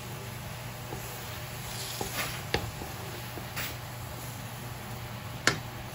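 Minced garlic sizzling softly in butter in a wok, with a wooden spatula scraping and knocking against the pan a few times. The sharpest knock comes near the end.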